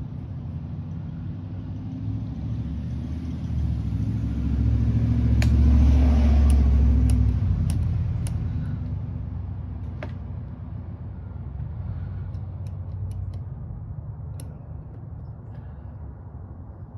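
A vehicle engine rumbling steadily, swelling to its loudest about six seconds in and then fading away. A few small sharp clicks come around the loudest part.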